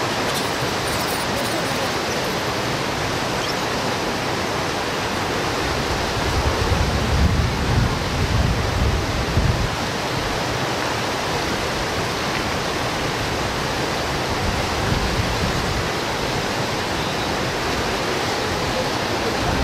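Steady rushing of flowing stream water, an even hiss with no break. A low, uneven rumble swells in between about six and ten seconds in.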